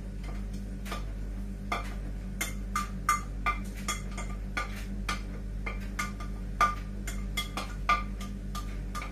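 A spoon clinking and scraping against a glass bowl as peas are tipped out into a pan: a quick, irregular run of sharp ringing clinks, over a steady low hum.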